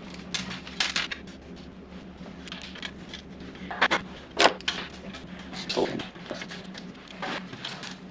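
Crinkling of a plastic bag of hardware and scattered light clicks and metal knocks as a sheet-steel workbench drawer is handled and pushed onto its slide rails, with the sharpest knocks about four seconds in.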